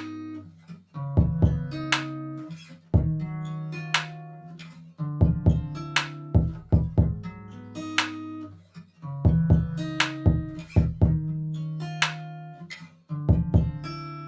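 Background music of plucked guitar notes over a low bass line, each note struck sharply and dying away.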